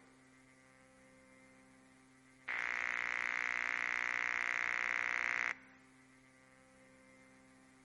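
A steady low electrical hum, broken about two and a half seconds in by a harsh, fluttering electronic buzz that holds steady for about three seconds and then cuts off.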